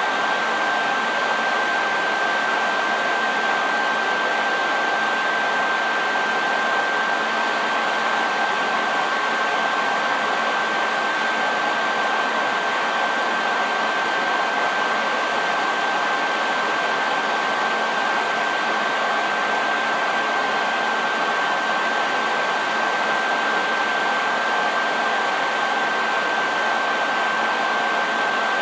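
Hair dryer running continuously: an even, unchanging rush of air with a steady high whine from its motor and fan.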